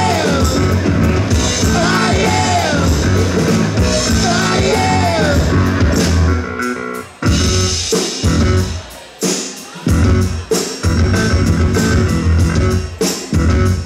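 Live rock band of electric guitars, drums and keyboard playing loud. About seven seconds in the band switches to short stop-start hits with brief gaps between them.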